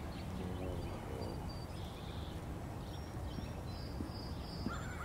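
Quiet outdoor ambience: a steady low background hum with a few short, high bird chirps, and a few faint taps near the end.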